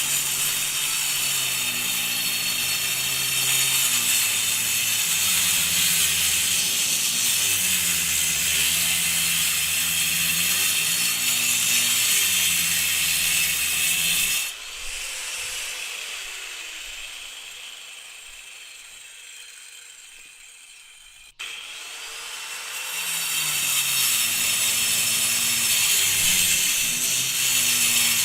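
Angle grinder cutting concrete, its motor pitch wavering as the disc is loaded. About halfway through it is switched off and winds down with a falling tone, then starts again some seven seconds later and speeds back up to cutting.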